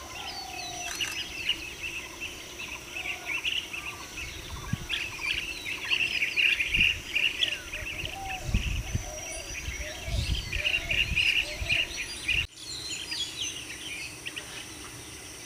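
Many birds calling with short, quick chirps over a steady high insect drone. Low rumbles come through in the middle, and the sound breaks off abruptly about twelve seconds in, where the scene changes.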